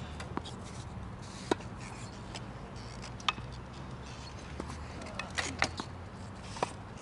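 Tennis ball struck by rackets and bouncing on a hard court during a wheelchair tennis rally: a string of sharp pops at uneven intervals, the loudest about every two seconds, over a low steady hum.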